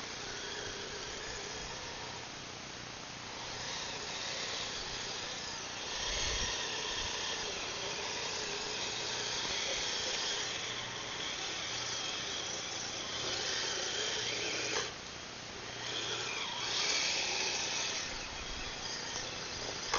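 Electric drive motor and gearing of a Kyosho Blizzard SR RC snow vehicle whining as it drives, rising and falling with the throttle. It drops off briefly about three quarters of the way through, then picks up again.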